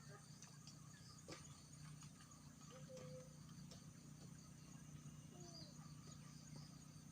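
Near silence: a faint steady low hum with a few soft clicks.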